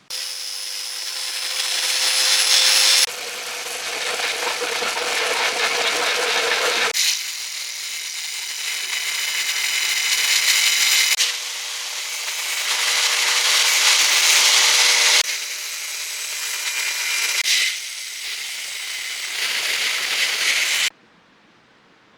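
Electric power tool cutting and grinding into a block of wood for a dagger handle: a loud, harsh high-pitched grinding with a motor whine, changing abruptly several times as the tool works, then cutting off near the end.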